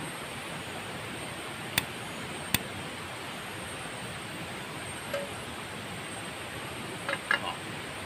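Portable butane cartridge stove's piezo igniter clicking twice as its knob is turned, followed near the end by light metallic clinks as an aluminium mess tin is set on the stove's pot supports, over a steady background hiss.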